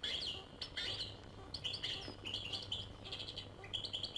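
Small birds chirping faintly: repeated short, high chirps coming several times a second, over a faint steady low hum.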